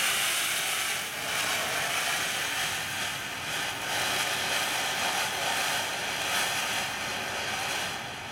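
TNT Love Birds fireworks fountain spraying sparks with a loud, steady hiss that surges slightly at times and drops off a little near the end as the fountain dies down.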